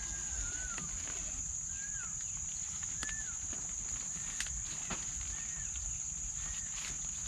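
Outdoor ambience of creatures at a wet campsite: a steady high-pitched insect drone, with short chirping calls that bend down in pitch about once a second and a few scattered sharp ticks.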